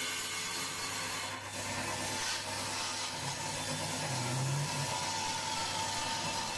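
Homemade table saw with a Makita blade ripping a board lengthwise: the blade cutting through the wood steadily over the even hum of the motor.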